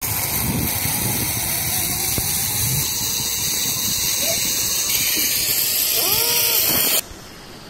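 Loud, steady rushing hiss of riding a zip line at speed. Near the end the rider gives a brief exclamation, and the hiss cuts off suddenly about seven seconds in.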